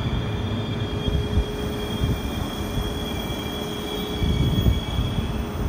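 Electric passenger train pulling out of the station, heard from on board: a steady low rumble with a thin high-pitched squeal held over it that fades near the end.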